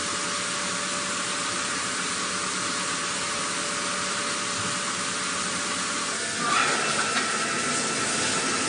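Steady hissing machine noise. About six and a half seconds in it grows louder and a steady high whine joins it.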